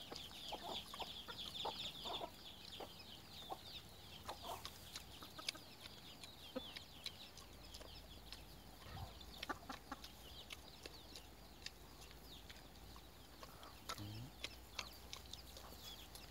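Chickens clucking faintly around a farmyard, with a run of thin high chirps in the first couple of seconds.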